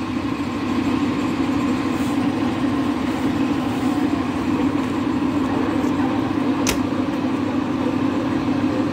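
TU-7A narrow-gauge diesel locomotive's engine idling steadily with a low, even hum. A single sharp click about two-thirds of the way in.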